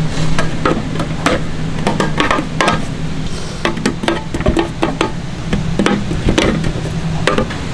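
Irregular clicks and knocks of metal bread tins and utensils being handled at a bakery worktable, over a steady low hum.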